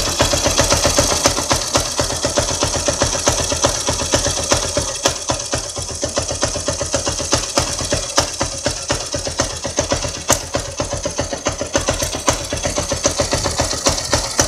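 Honda Mega Pro 160's single-cylinder air-cooled four-stroke engine idling in a fast, even pulse, with a knock that the owner puts down to the idle being set too low.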